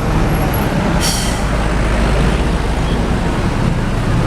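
Tour bus's diesel engine rumbling steadily, with a short hiss about a second in.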